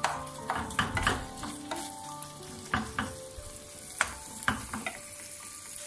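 Minced beef sizzling in hot oil in a frying pan as it browns, stirred with a wooden spatula that knocks and scrapes against the pan several times.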